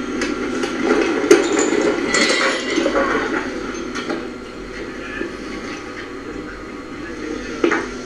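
Scattered metallic clinks and knocks over a rushing background noise, which is louder for the first three seconds and then eases off. The sharpest knock comes about a second in.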